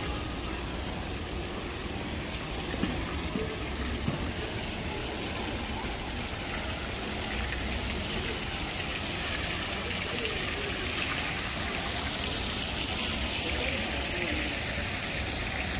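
Steady outdoor street ambience: an even wash of noise with faint, indistinct voices, and two light knocks about three and four seconds in.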